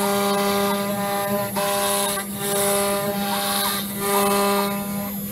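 CNC router spindle whining steadily while a 1/8-inch two-flute end mill routes letters into a board. The cutting noise rises and falls about every second as the cutter moves along its path.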